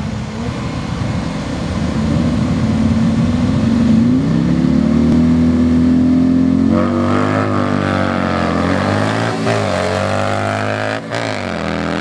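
Drag-racing motorcycle engine held at high revs on the starting line, the note stepping up about four seconds in. Then it launches, and the engine note climbs and drops back sharply at each upshift as the bike accelerates down the strip.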